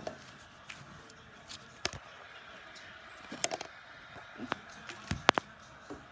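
Thick, chunky slime being mixed and worked, giving a scatter of irregular sticky clicks and squelching snaps.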